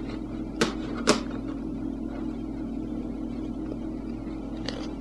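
Two sharp computer mouse clicks about half a second apart, a little under a second in, over a steady low electrical hum.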